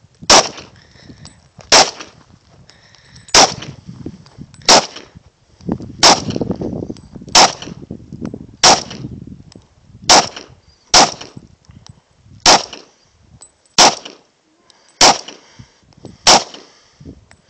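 Gen3 Glock 22 .40 S&W pistol fired in a steady slow string, about thirteen loud shots a little over a second apart, each followed by a short ring-out.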